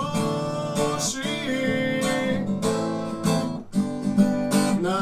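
Acoustic guitar strummed in rhythm, with a man singing a long held note over it in a Russian bard song.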